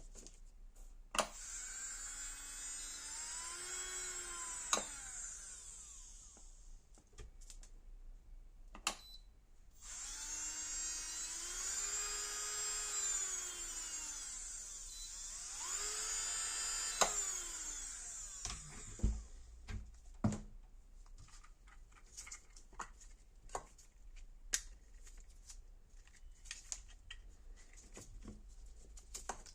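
JMD 306 electric manicure nail drill whining as its motor is run up and back down three times. The pitch climbs to a steady high speed, then sinks as it slows, with sharp clicks between runs. After the third run only scattered clicks and light taps remain.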